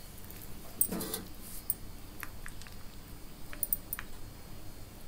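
Faint handling sounds of hands rolling batter-coated arbi (colocasia) leaves on a steel plate: a few light clicks and ticks, with a brief low sound about a second in.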